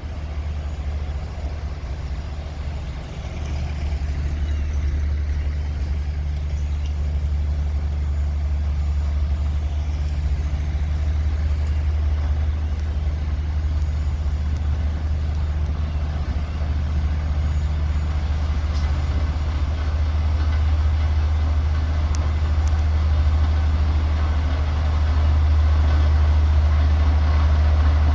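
Heavy road-construction machine's diesel engine running steadily with a deep, low drone, growing gradually louder, as if the machine is coming closer.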